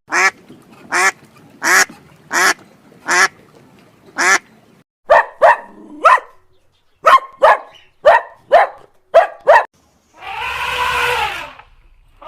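A duck quacking: six single quacks evenly spaced at first, then quicker runs of quacks. Near the end a longer, harsher animal call starts and carries on.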